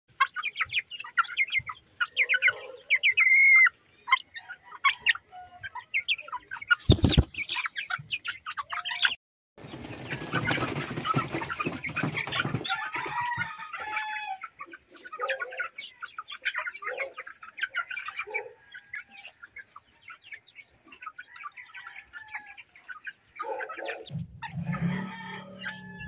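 A flock of chickens clucking and calling in many short, quick notes, with a sharp knock about seven seconds in and a burst of wing flapping from about ten to twelve seconds.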